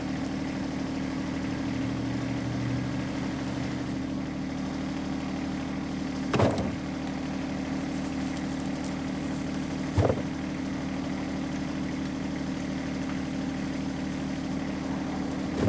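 John Deere 1025R compact tractor's three-cylinder diesel running steadily at an even speed while working a 260B backhoe, with two brief sharp sounds about six and ten seconds in.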